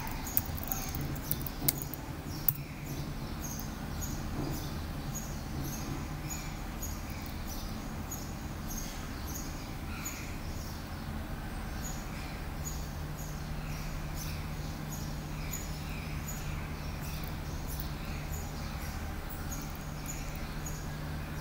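Three sharp clicks in the first few seconds, typical of keyboard and mouse clicks as a web address is entered. Then a steady low room hum with faint short chirps repeating about once a second.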